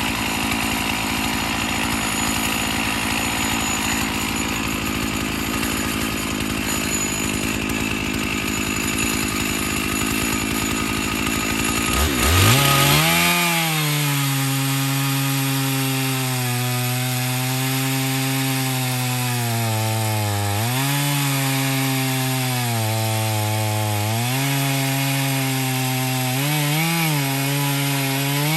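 Chainsaw running in a lumber-milling cut through cedar slab. For the first dozen seconds it makes a rough, dense buzz. Then the engine revs up sharply and holds a high, steady note whose pitch sags and recovers several times as it loads up in the wood.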